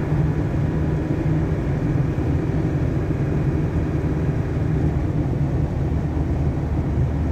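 Steady engine and road noise of a cargo truck driving at a constant pace, heard from inside the cab as an even low rumble.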